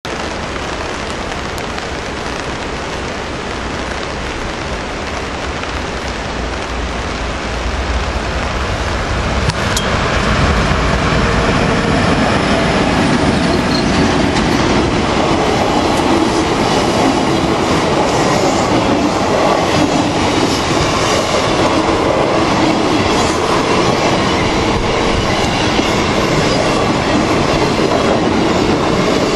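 Passenger train passing close by: an electric locomotive hauling the Venice-Simplon Orient Express's vintage blue-and-cream sleeping cars. The sound grows louder about eight to ten seconds in as the train draws level, then holds steady as the carriages run past.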